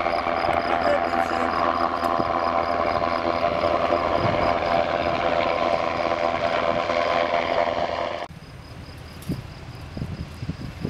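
Sikorsky S-70i Black Hawk helicopter flying close by: steady twin-turbine whine over the main rotor's sound. About eight seconds in it cuts off suddenly to a much quieter stretch with low thumps of wind on the microphone.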